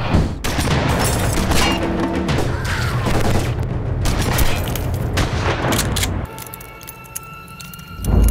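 Loud film-trailer soundtrack: music under booms and rapid sharp hits like gunfire or explosions for about six seconds, then dropping to softer music with held tones.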